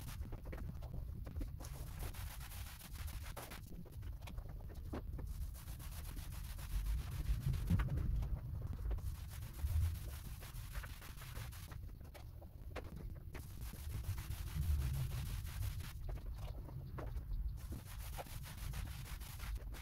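Paint roller on an extension pole rolling white paint across a ceiling: a steady rubbing swish of back-and-forth strokes, with short breaks every few seconds.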